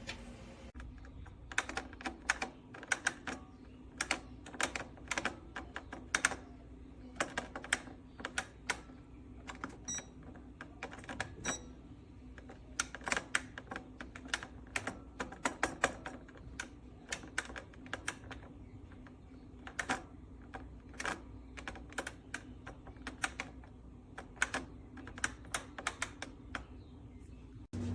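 Rapid, irregular clicking in short runs over a steady low hum, which cuts off just before the end.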